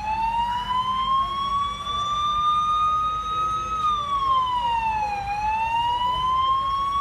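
Emergency vehicle siren wailing: its pitch rises slowly, drops about four seconds in, then rises again.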